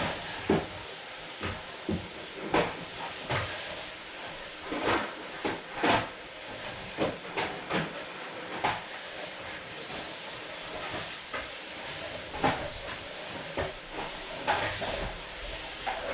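Household cleaning sounds: a steady hiss with irregular knocks and clatter, roughly one a second, as things are handled and moved.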